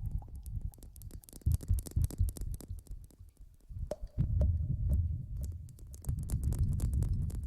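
Close-miked ASMR rustling and rubbing against the microphone: deep, muffled, uneven thumping with many small crackly clicks, and a faint steady hum for part of the time.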